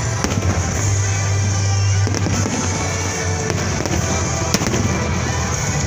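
Aerial fireworks shells bursting in a display, with a few sharp bangs standing out, the sharpest about four and a half seconds in, while music plays throughout.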